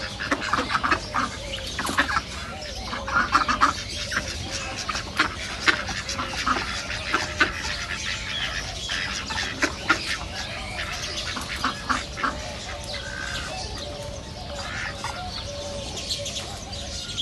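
A flock of ducks calling and quacking, many short calls overlapping in a busy chorus that thins a little in the second half.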